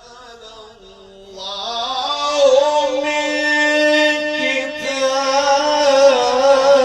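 Male Quran reciter chanting in the melodic mujawwad style. A trailing phrase fades out, then about a second and a half in he begins a long melismatic line, holding a note with a slowly wavering, ornamented pitch.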